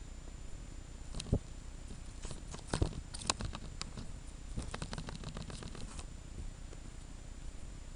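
A baby ferret scrabbling about right at the camera: small clicks and scrapes with a few sharper knocks, then a quick run of small clicks about five to six seconds in.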